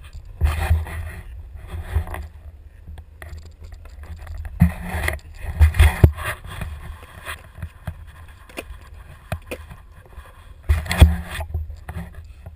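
Longboard wheels rolling over asphalt with wind buffeting the camera's microphone: a steady low rumble broken by several louder rushes and scrapes, the strongest around the middle and again near the end.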